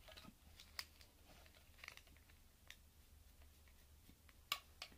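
Near silence with a few faint clicks and taps from small plastic makeup items being handled, the two sharpest close together near the end.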